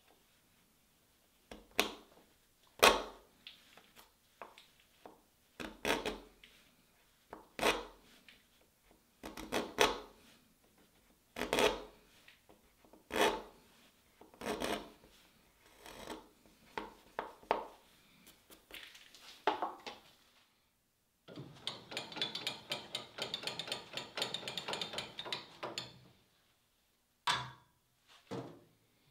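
A bench chisel paring walnut at a 45-degree miter, in short scraping cuts one to two seconds apart. After a brief silence comes about five seconds of fast, fine rattling, then two short knocks near the end.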